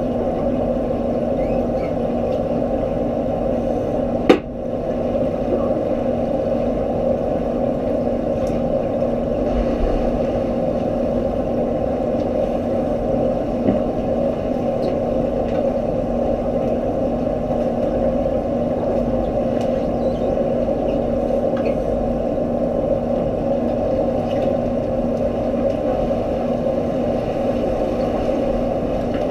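Steady underwater swimming-pool drone heard through the water, a machine-like hum with two steady tones. One sharp click about four seconds in, and a fainter one near fourteen seconds.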